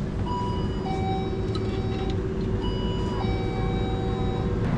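Electronic shop-door entry chime sounding a two-note ding-dong, a higher note then a longer lower one, twice over, with a steady hum and background hubbub underneath.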